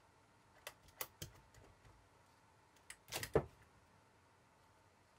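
Cylinder head of a Kawasaki ZX-7R inline-four engine being lifted off the cylinder block by hand: a few light knocks about a second in, then a louder cluster of metal clunks a little past three seconds as it comes free.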